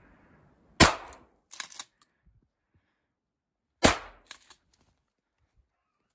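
Two gunshots about three seconds apart, each sharp and loud and followed by a couple of fainter cracks.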